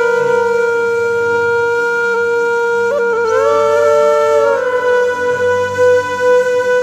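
Background music: a solo flute-like wind instrument holding long sustained notes, with a slide up and back down in the middle.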